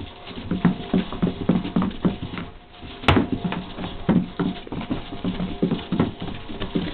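A dog's claws clicking and scrabbling on a hard floor in quick, irregular taps as it jumps about chasing lights, with one sharper click about three seconds in.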